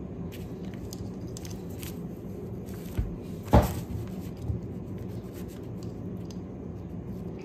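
Small parts clicking and rubbing as a cork carburetor float and its hinge pin are worked into the float hinge by hand, with one sharper click about three and a half seconds in, over a steady low hum.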